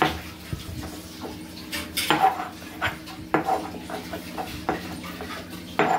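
Tulsi (holy basil) leaves being pounded to crush them: about a dozen hard, irregular knocks and clinks.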